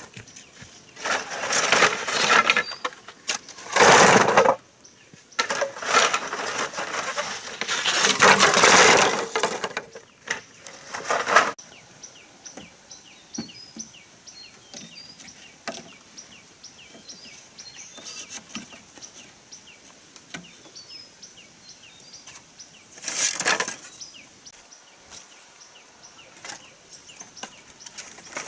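Bamboo poles and dry leaves rustling and scraping in several loud bursts as the bamboo is handled, through the first half. Then a quieter stretch with faint chirping, broken by one more short rustle near the end.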